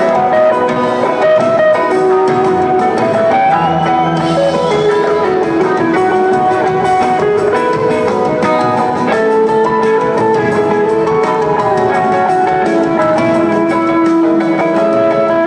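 Live rock band playing, with electric guitar lines over bass, drums and organ, recorded from the audience.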